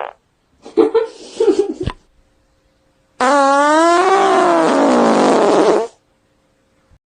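Two fart sounds: a short sputtering one about a second in, then a longer, louder one about three seconds in whose pitch slides downward before it cuts off.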